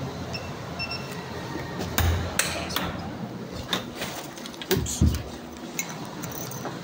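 Wall-mounted biometric attendance terminal giving two short high beeps, acknowledging a scan. Then a run of sharp knocks and rustling handling noises, loudest about five seconds in.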